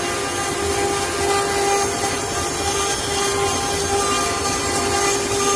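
CNC wood carving router running, a steady high spindle whine over the noise of the bit cutting wood.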